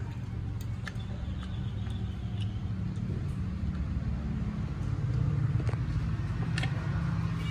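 A steady low motor rumble, swelling slightly about five seconds in, with a few faint light clicks over it.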